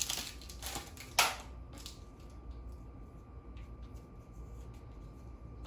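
Handling of a foil trading-card booster pack: soft crinkling of the wrapper with one sharp crackle about a second in, then quiet handling of the cards.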